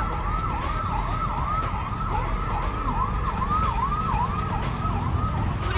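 A siren in the street with a fast, repeating falling-then-rising tone, about two and a half cycles a second, over the low rumble of traffic. It stops shortly before the end.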